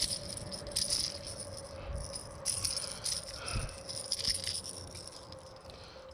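A hooked small bass shaking on a hard-bodied fishing lure, making its treble hooks and body rattle in four short jingling bursts.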